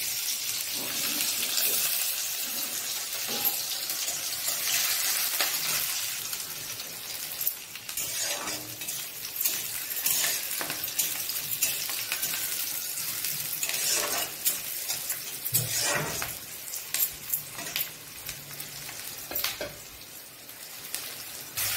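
Chopped onion sizzling in hot oil in a black kadai, with a spatula stirring and scraping against the pan now and then, mostly in the second half.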